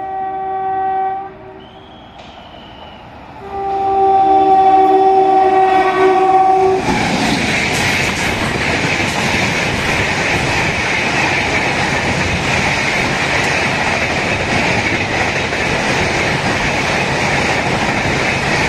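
The 12952 Mumbai Tejas Rajdhani Express sounds its locomotive horn as it approaches, a steady chord of several notes blown twice: a short blast ending about a second in, then a longer, louder one. Then the train rushes through the station at about 130 km/h, a loud continuous roar of passing coaches with the clickety-clack of wheels over rail joints.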